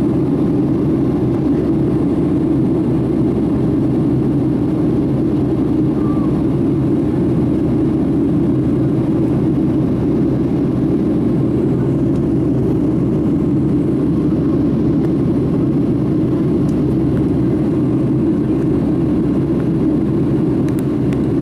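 Boeing 757 cabin noise in flight, heard from a window seat over the wing: a steady low rumble of engine and airflow that stays even throughout.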